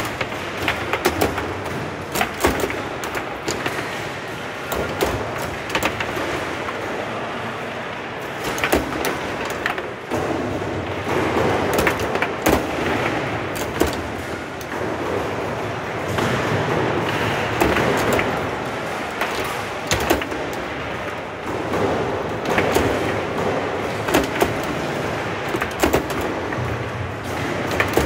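Foosball match play on a competition table: a rapid, irregular run of sharp clacks and knocks as the ball is struck by the plastic player figures and hits the table walls, with the rods banging at their stops, over steady background noise.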